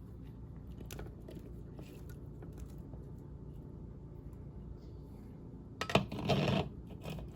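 Light kitchen handling clicks, then about six seconds in a sharp clink and a brief clattering rustle as drained ham cubes are tipped into the casserole dish.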